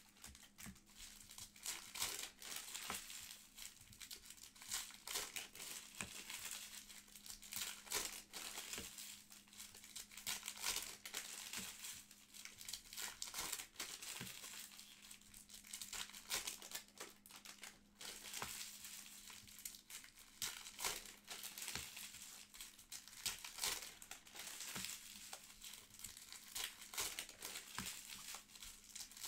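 Trading card pack wrappers crinkling and tearing as packs are ripped open, in quick irregular bursts of crackle, over a faint steady low hum.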